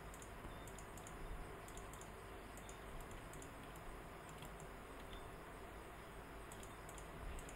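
Faint, scattered clicks of a computer keyboard and mouse as keys and buttons are pressed, over a low steady hiss.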